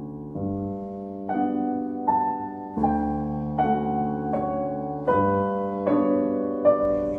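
Background piano music: a slow, gentle melody over sustained chords, with a new note or chord about every second.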